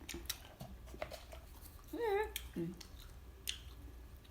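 Eating sounds at close range: small clicks and taps of utensils and chewing, with a short murmured voice sound about two seconds in.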